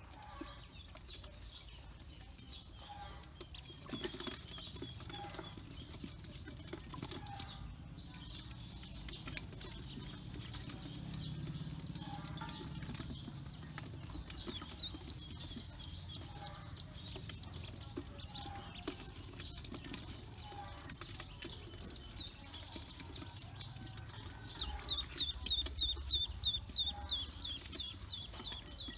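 A group of Pekin ducklings peeping, with runs of rapid high peeps about four a second, loudest about halfway through and again near the end.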